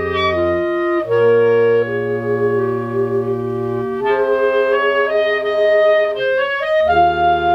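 Clarinet choir playing: B-flat clarinets over a bass clarinet in held chords that change every few seconds, with a quick run of short notes in the upper parts near the end.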